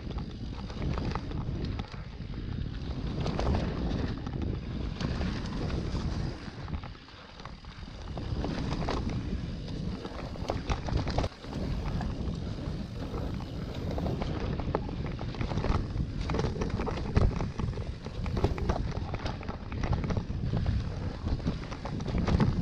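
Wind buffeting the rider's point-of-view camera microphone during a mountain bike descent, mixed with tyres rolling over a dirt trail and the bike rattling and knocking over bumps. It eases off briefly about seven seconds in.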